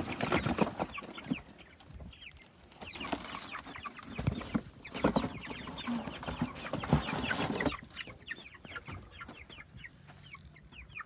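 Three-week-old Cornish Cross chicks peeping over and over in short chirps. Through the first three-quarters there is rustling and knocking as the birds are handled and set down in the coop, which then quietens to the peeping alone.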